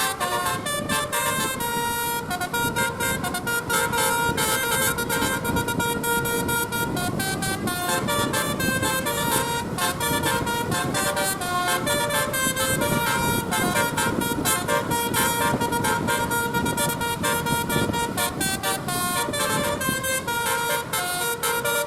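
Telolet basuri musical bus horn playing a melody as a run of held notes that change pitch every fraction of a second to a second, over a steady low rumble.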